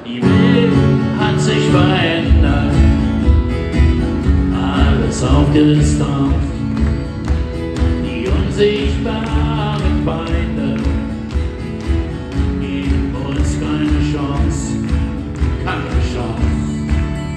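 Live acoustic guitar music in a country style starts abruptly, and a steady low beat joins in about two seconds later.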